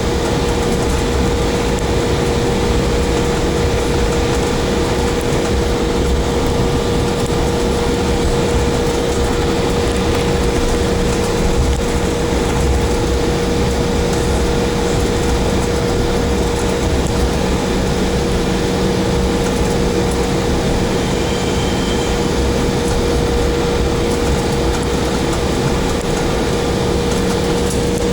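Steady airliner cabin noise on the ground after landing: an even rumble and hiss from the jet engines and air system, with a constant mid-pitched hum.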